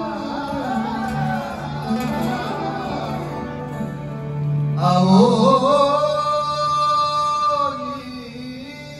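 Male Rajasthani folk singer singing over amplified instrumental accompaniment with a steady low drone. About five seconds in his voice glides up into a long held high note, and it falls away near the end.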